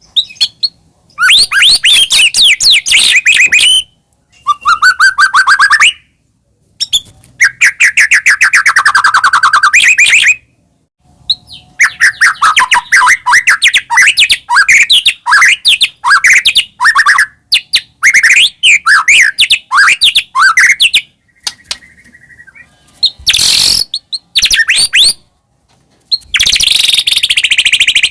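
White-rumped shama (murai batu) singing loudly in rapid phrases of quick repeated whistled notes, each phrase a second or two long with short pauses between. Its song is packed with mimicked phrases (isian). A couple of harsh rasping bursts come near the end.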